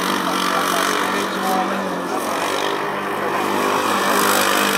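Formula Student race car's engine running steadily as the car is driven through a cone course.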